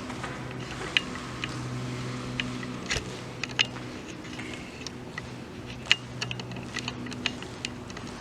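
Scattered sharp clicks and taps, irregular and loudest about a second in, at three seconds and near six seconds, over a steady low hum that comes and goes.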